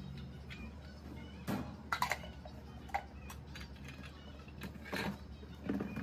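Light clicks and knocks of a clear cup being handled and set into a plastic dish-dryer drawer: several separate taps about a second apart, over a low steady hum.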